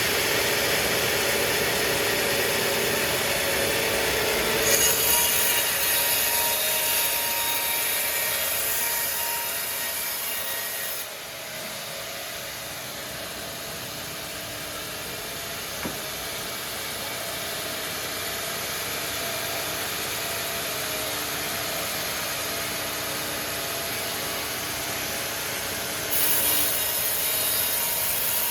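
Sawmill saw cutting through timber: a continuous harsh sawing noise that turns louder and hissier about five seconds in, drops back at about eleven seconds, and rises again near the end.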